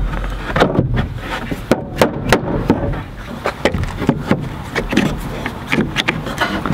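Rubber mallet knocking on pine boards, then a one-handed bar clamp being squeezed tight with a run of clicks in the second half.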